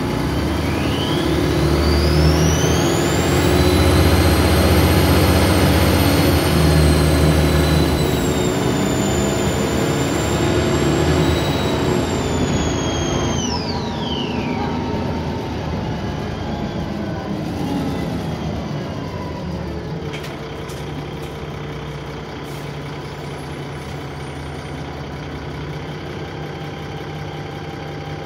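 Dennis Trident 2 double-decker bus pulling away with a loud turbo whine. The whine climbs quickly to a high, steady pitch and holds for about ten seconds under the heavy engine noise. About halfway through it drops away steeply as the bus eases off, and the engine settles to a quieter, steady run.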